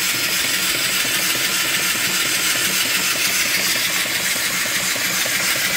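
Mill steam engine with a 3-inch bore and 4-inch stroke running steadily at about 200 RPM, a regular rhythmic beat over a constant hiss, while driving a belted alternator.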